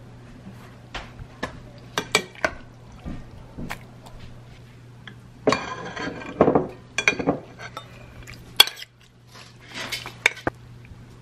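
Kitchen handling sounds: scattered clinks and knocks of a utensil and dish against a glass bowl and a cast iron pan, with scraping stretches as chicken filling is scooped out of the bowl into the pan. There is a sharp knock near the three-quarter mark.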